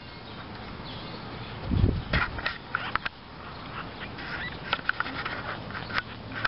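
Newborn French bulldog puppies making short squeaks and grunts over and over, with one low thump about two seconds in.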